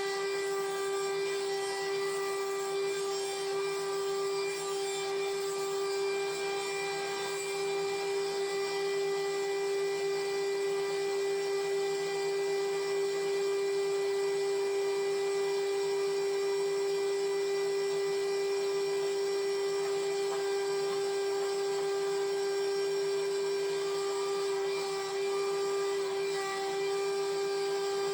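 Sawmill saw running with a steady high-pitched whine that holds an even pitch and level throughout.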